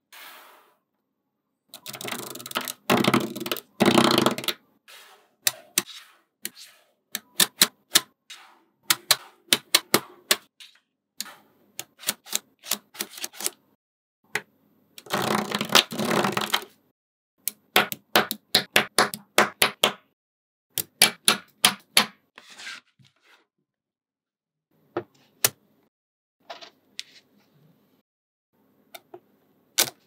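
Small magnetic balls clicking and snapping together as they are handled and set into place, in quick runs of sharp clicks with pauses between. Two longer spells of dense rattling come as a whole panel of balls shifts, once near the start and again about halfway through.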